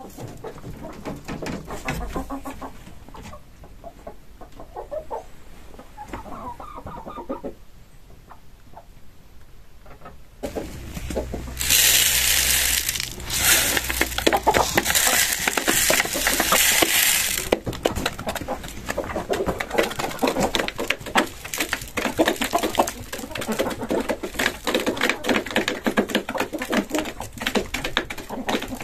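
Dry feed poured from a plastic bowl into a hanging poultry feeder: a loud steady hiss lasting about six seconds, starting near the middle. After it, chickens cluck among many quick taps.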